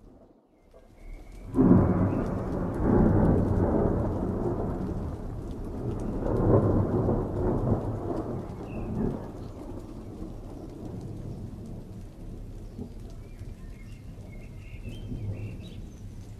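Thunder: a sudden loud crash about a second and a half in, rolling on with a second swell, then dying away to a low steady rumble.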